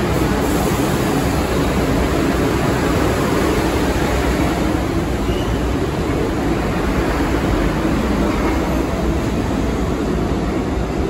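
New York City subway train (R62A cars of the 1 line) pulling out of the station, a steady rumble of wheels and motors on the rails echoing off the station walls, with the next 1 train coming in near the end.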